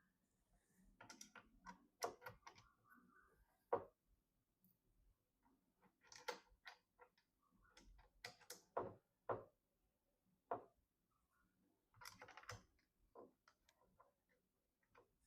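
Quiet, irregular light clicks and taps of small plastic and metal PC parts being handled, in loose clusters with short pauses between them.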